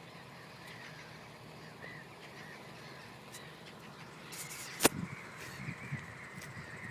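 A flock of birds calling faintly over a field, with a single sharp click a little before five seconds in.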